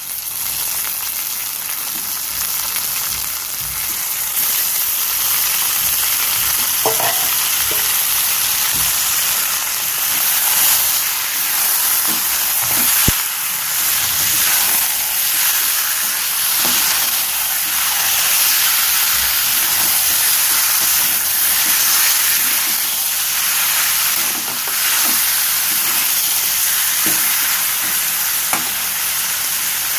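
Raw chicken pieces sizzling in hot oil in a kadai with onions and ginger-garlic, a dense steady hiss that grows louder about four seconds in. The pan is stirred, with short knocks against it now and then.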